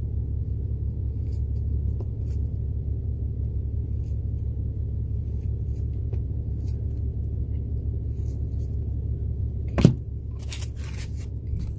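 Steady low rumble of the semi truck's diesel engine heard inside the cab. A single sharp knock about ten seconds in.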